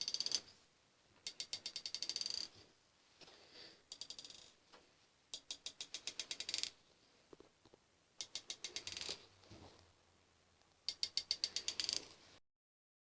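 A ratchet clicking in quick bursts of about a dozen clicks each, six strokes in all with short pauses between them. The sound cuts off abruptly near the end.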